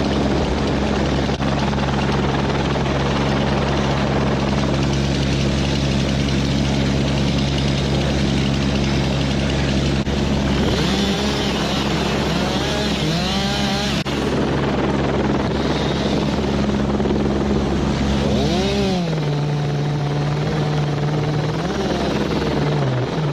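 A heavy engine running steadily, with its pitch rising and falling a few times in the middle and dropping to a new steady note near the end.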